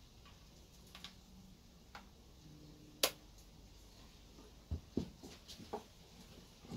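Handling noise from a Canon EOS 600D DSLR: a few small clicks of its buttons, a loud sharp click about three seconds in, then several dull knocks near the end as the camera is set down on a wooden table.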